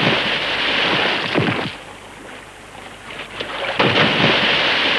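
A horse and rider plunging off a cliff into a lake, heard as heavy water splashes. A splash is already crashing and dies away a little under two seconds in. A second sudden splash of water and spray comes near the end.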